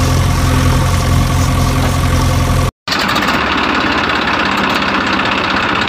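Engine idling steadily with an even low hum. About three seconds in it cuts out abruptly and a rougher engine sound takes over, typical of an engine sound effect laid over the toy vehicles.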